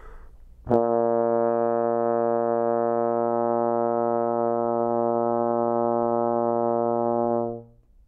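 Tenor trombone playing one long, steady low note, with a crisp tongued start about a second in and a fade-out near the end. It is a controlled long tone held on steady air, the basic first sound on the instrument.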